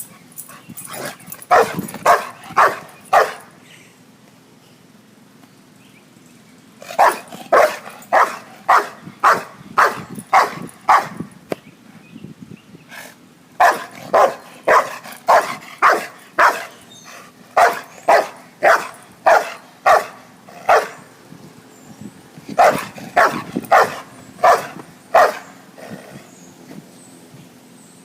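A pet dog barking in volleys of loud, sharp barks, about two a second, with pauses of a few seconds between volleys; the owner takes it for scared barking.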